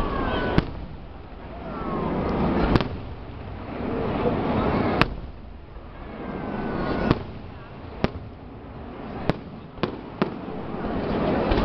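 Aerial fireworks shells bursting overhead: about eight sharp bangs, coming faster toward the end, between swells of rushing noise and a few faint whistles.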